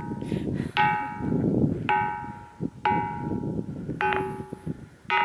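Corani's 'bell stone' struck with a hand-held rock four times, about a second apart. Each strike gives a clear, bell-like ring of several tones at once that dies away, over a steady low rushing noise.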